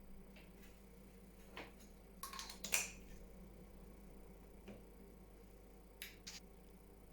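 A few short, sharp clicks and handling noises, the loudest cluster about two and a half seconds in and two more close together near the end, over a faint steady hum.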